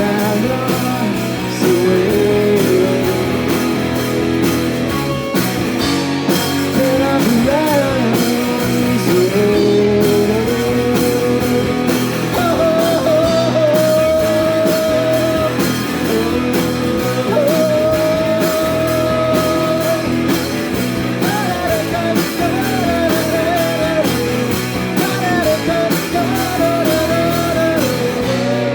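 Live rock band of electric guitar, bass and drums playing loudly, with a steady drum beat under a lead melody that slides between notes and holds them.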